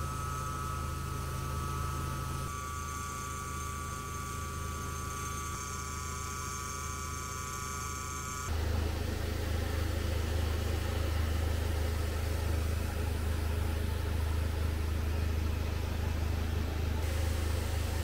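Haas TM-1 CNC mill running an end mill through aluminium: a steady whine of several high tones. About eight seconds in the sound changes to a louder, even hiss over a low hum.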